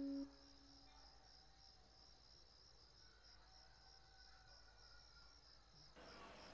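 Faint crickets chirping in an even, rapid pulse over quiet room tone. A held music chord cuts off just as it begins.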